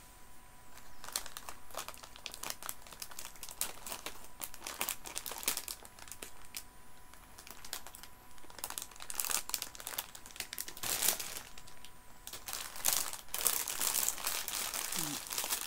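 Plastic sweet packets crinkling as they are rummaged through and handled, with dense crackles that grow busier in the second half.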